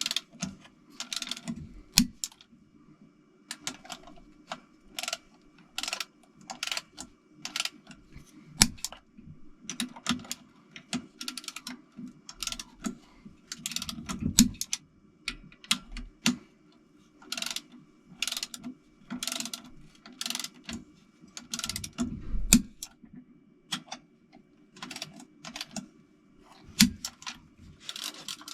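Hand tools working on an engine: a ratchet wrench clicking in short, irregular runs, with occasional knocks of metal on metal.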